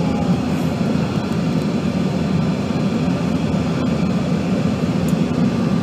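Steady engine and airflow noise inside the cabin of a Bombardier CRJ200 on short final approach, its two rear-mounted turbofans running as the jet crosses the runway threshold.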